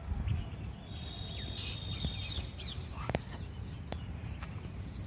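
Birds chirping and whistling over a steady low background rumble, with a couple of sharp clicks about three and four seconds in.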